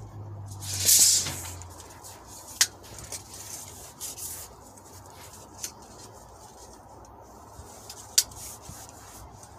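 Rubbing and scraping at a car door as a tape measure blade is worked into the door gap, with one loud scrape about a second in and three sharp clicks spread through the rest.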